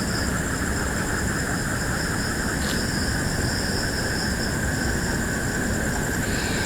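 Steady night chorus of insects and frogs: several unbroken high-pitched trills at fixed pitches over a low, even rumbling noise.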